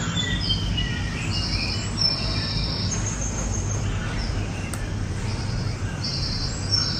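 Birds chirping: short high tweets repeating every second or so, over a steady low hum of room noise.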